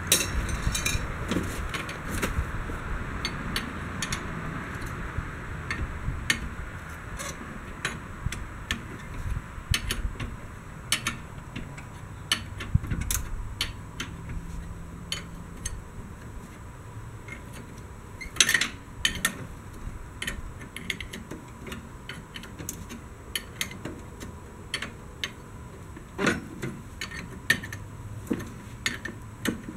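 A ratchet wrench clicking in short runs and metal tools clinking against steel as bolts are tightened. The clicks come irregularly, with a louder cluster of clinks about 18 seconds in and again about 26 seconds in.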